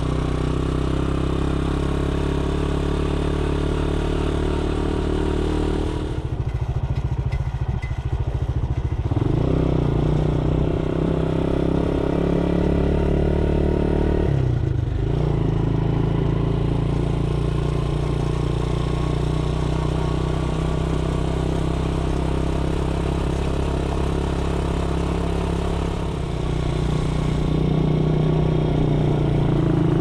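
Motorcycle engine running steadily while riding. About six seconds in, the engine note drops away for about three seconds, then comes back; it dips briefly again around fifteen seconds and around twenty-six seconds in, and after the last dip it runs louder.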